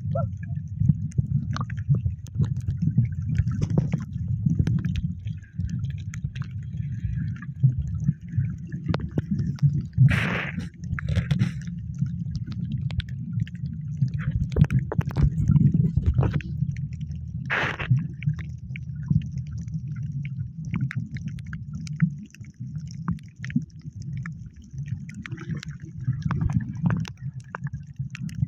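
Muffled underwater sloshing and bubbling picked up by a camera below the surface, with a few sharp clicks scattered through.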